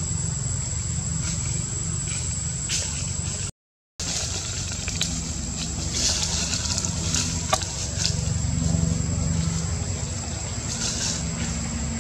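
Steady outdoor background noise: a low rumble with a thin, steady high tone over it and a few faint clicks. It cuts out for a moment about three and a half seconds in.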